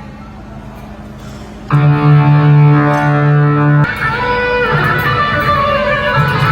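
Guitar played during a sound check. A faint fading note, then about two seconds in a loud chord rings out and holds. Near four seconds it changes to a new chord with single notes moving over it.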